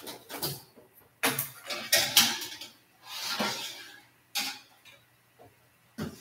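Metal baking sheet being put into an oven: a run of clattering and scraping starting about a second in, followed by a longer scrape and separate knocks near the end.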